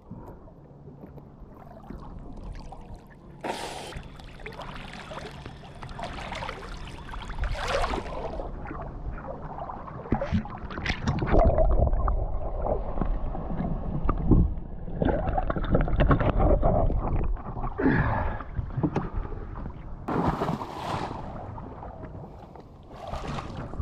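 Sea water splashing and sloshing irregularly close to the microphone as a person swims, with a few sharper splashes and heavier low churning in the middle.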